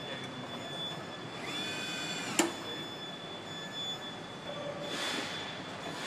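Car assembly line machinery: a steady high whine over general factory noise, a brief squeal about one and a half seconds in that ends in a sharp metallic clank, and a burst of hiss near the five-second mark.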